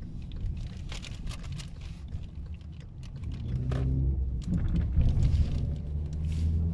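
Hyundai Elantra car driving in traffic, heard from inside the cabin: a steady low engine and road rumble that grows louder about halfway through, with a few light clicks.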